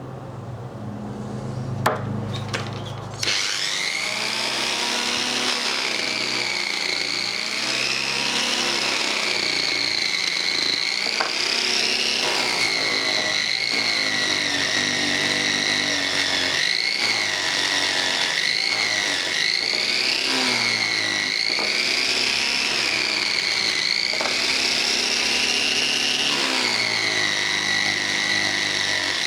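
Electric power tool starting about three seconds in, then running with a steady whine that keeps dipping and rising in pitch as the load on it changes.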